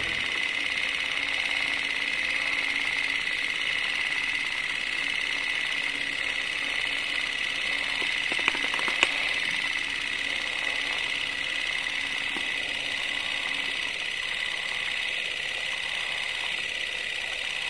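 Steady background hiss with a faint high whine and a low hum, with two light knocks about halfway through.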